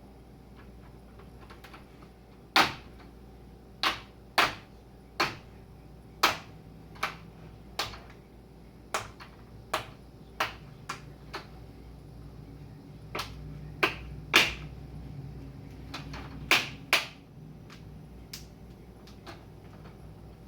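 Plastic screen bezel of a Toshiba L75-B1750 laptop being prised off the lid. Its retaining clips let go one after another in a string of sharp plastic snaps and clicks, irregularly spaced, about twenty in all.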